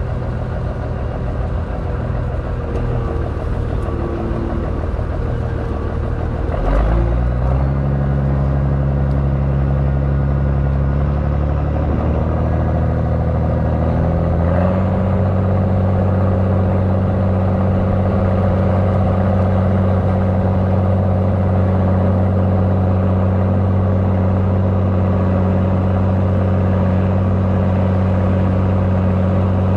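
Engine of farm harvest machinery running steadily under load. About a quarter of the way through there is a knock and the engine gets slightly louder, then its note rises in two steps and holds steady.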